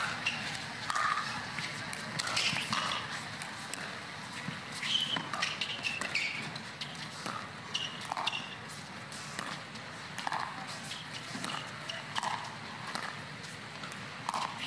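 Repeated sharp pocks of pickleball paddles striking the hollow plastic ball through a long rally, with voices in the background.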